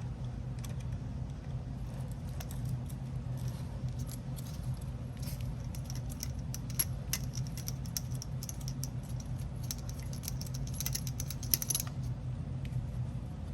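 Small metal tool and parts clicking and rattling as a 2 mm hex driver works a screw out of an RC monster truck's rear suspension, with the clicks coming thickest near the end, over a steady low hum.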